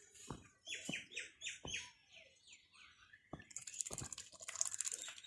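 A bird chirping: a quick run of about seven high peeps, each sliding down in pitch, followed near the end by a high, hissing rattle.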